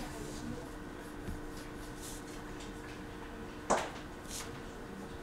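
Coloured pencil scratching across drawing paper, with sheets rustling, over a steady low hum. One sharp tap or rustle comes a little over halfway through.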